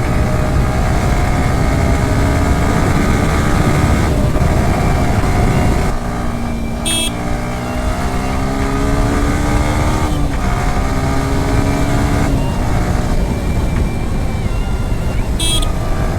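Motorcycle engine running on the move, its pitch climbing steadily and then dropping at each gear change, under heavy wind rumble on the microphone. Two short high-pitched beeps sound about seven seconds in and again near the end.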